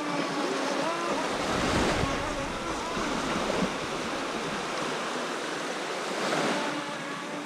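Small waves washing and lapping onto a sandy lake shore, with wind buffeting the microphone in a gust about two seconds in.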